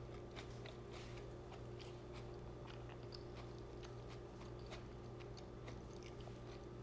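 Faint chewing of a mouthful of cauliflower rice with the mouth closed: small irregular clicks over a low steady hum.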